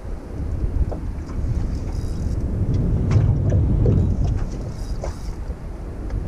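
Wind buffeting the microphone on an open boat, a dense low rumble that swells in the middle, with a few faint clicks.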